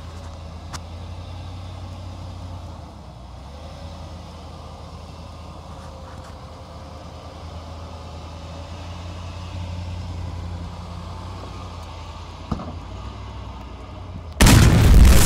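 2016 Ram Power Wagon's 6.4-litre HEMI V8 running at a low, steady idle as the truck crawls through a ditch. A single click comes near the end, then a sudden, much louder rush of noise cuts in.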